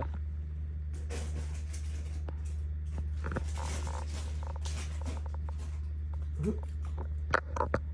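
A steady low hum, with faint scattered clicks and rustles over it.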